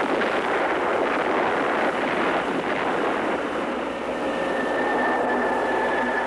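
Steady rushing noise of a jet aircraft in flight. About four seconds in, a high tone with a fainter lower one beneath it joins and slides slowly down in pitch.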